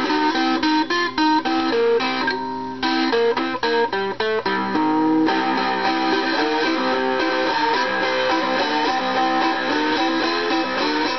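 Four-string cigar box guitar with a piezo pickup, played through a small 9-volt cigar box amp: a blues riff of plucked notes. In the first few seconds it is choppy, with short separate notes, and then it settles into longer ringing notes.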